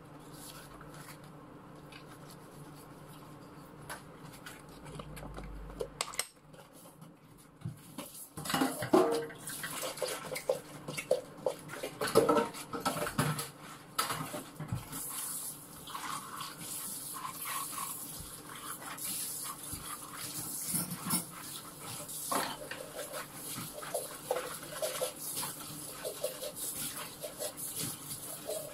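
Dishes being washed by hand at a kitchen sink: irregular clatters and knocks of dishes and utensils, busiest from about eight seconds in, with tap water running in the later part.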